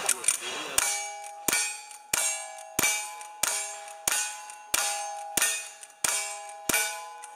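Lever-action rifle fired ten times at an even pace, about three shots every two seconds. After each shot comes the short metallic ring of a steel target being hit.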